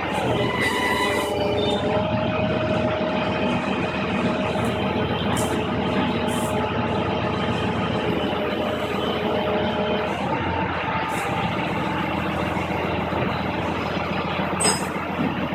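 CVR(T) tracked armoured vehicle running steadily, with a few whining tones over the engine noise, one sliding down in pitch just after the start. A short sharp click comes near the end.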